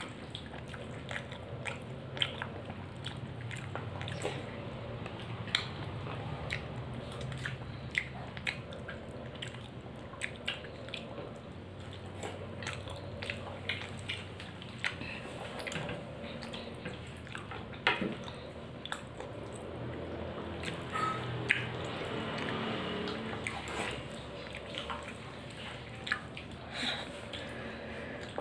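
Eating by hand: chewing with wet mouth clicks and lip smacks, and soft squishing as fingers mix rice and curry on the plate, in many short irregular ticks.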